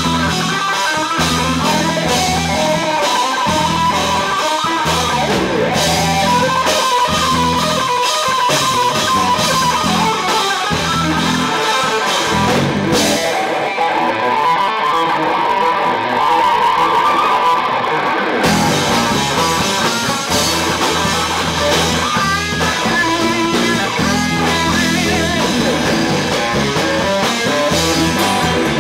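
Live rock band playing an instrumental passage, with an electric guitar line over bass and drum kit. About 13 seconds in, the bass and drums drop out and the guitar plays alone for a few seconds; the full band comes back in at about 18 seconds.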